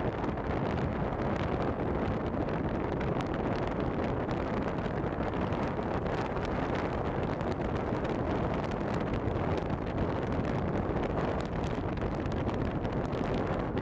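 Steady wind rushing over the microphone together with the road and engine noise of a moving vehicle at speed.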